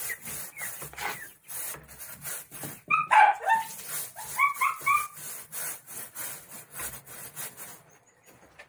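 Repeated scraping and rubbing on the wooden slats of a chicken cage as it is cleaned. An animal cries out loudly about three seconds in, then gives three short calls a second or so later.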